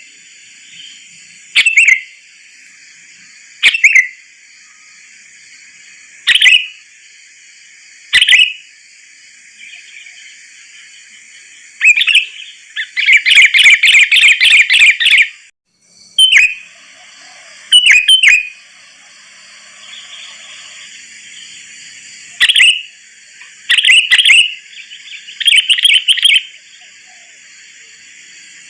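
Sooty-headed bulbul (kutilang) calls played as a bird-trapping lure recording. Short, loud call phrases come about every two seconds, with a rapid run of repeated notes between about 13 and 15 seconds in. A steady faint high chorus runs underneath.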